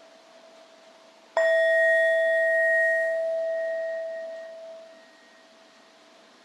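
A meditation bell or singing bowl struck once, about a second and a half in, ringing with a clear low tone and a higher overtone that fade away over about three seconds. A faint ringing tone from an earlier strike is still dying away before it.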